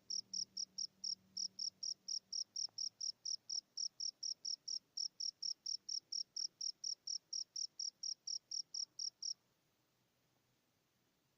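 A cricket chirping in a steady, rapid train of short high pulses, about four or five a second, which cuts off abruptly near the end.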